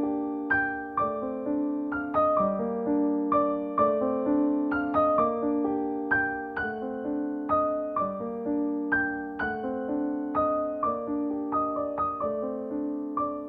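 Soft, gentle piano music: a steady flow of struck notes and chords, each ringing and decaying.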